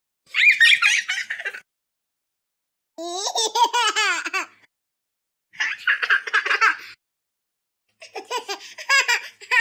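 A young child laughing in four bursts of high-pitched giggles, with short silences between them.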